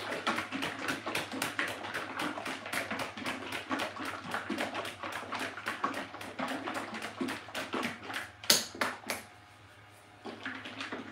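A bottle of gray 3D-printer resin shaken hard by hand in quick strokes, about five a second, to remix resin that has settled. One sharp knock about eight and a half seconds in, and a brief pause just before the end.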